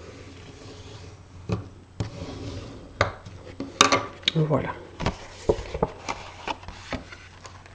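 Card stock being handled and folded along its scored creases: scattered light taps, rustles and a few sharper clicks against the table.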